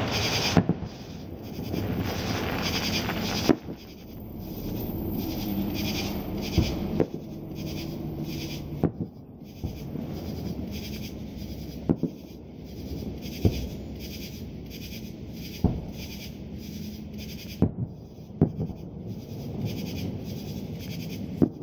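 Fireworks display heard from a distance: sharp bangs of shells bursting at irregular intervals, about ten in all, over a steady background din.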